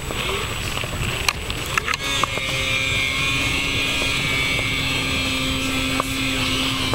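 Snowmobile engine running at a steady, unchanging high-pitched whine that sets in about two seconds in, over wind buffeting the microphone.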